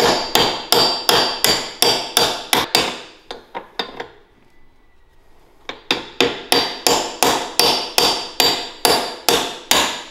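Small hammer tapping steadily on a Coleman B200RSV mini bike's front fork tube to drive it through a tight triple clamp, about three metallic-ringing strikes a second. The tapping stops for about two seconds midway, then resumes at the same pace.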